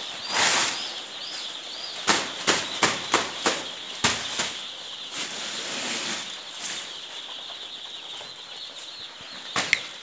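A shed full of chicks peeping continuously in a high chorus. Over it comes a run of quick swishing strokes, about seven in a row between two and four and a half seconds in and two more near the end, as a stick is swept through the floor litter.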